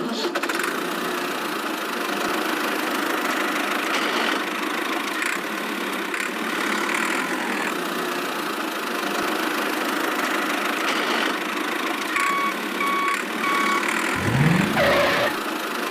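A small motor running steadily with a dense mechanical whirr. About twelve seconds in come three short beeps, and near the end a brief rising whine.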